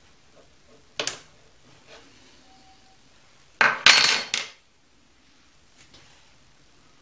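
Metal parts being handled: a sharp clink about a second in, then a louder run of clinks and clatter about four seconds in, as a drilled metal blank is freed from a small machine vise and lifted out over metal chips.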